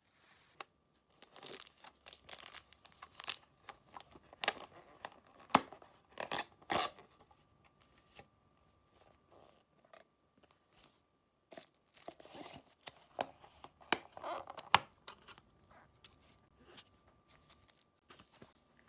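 Thin plastic carrier bag rustling and crinkling as takeout food is unpacked, then clear plastic food containers clicking and crackling as they are handled. The sound comes in two busy spells of crackles and sharp clicks, the first from about a second in and the second about two-thirds of the way through, with lighter handling between.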